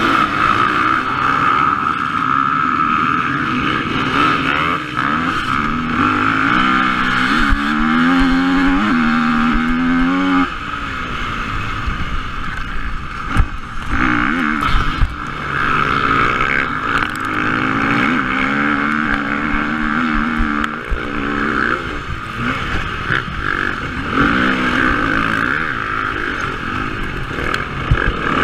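Enduro dirt bike engine heard from the bike itself, pulling hard under acceleration, its revs climbing and dropping back at each gear change several times over.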